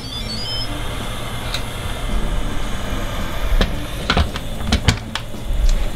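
Instant Pot electric pressure cooker lid being twisted open and lifted off, with several sharp clunks of the lid between about three and a half and five seconds in, over a steady background hiss.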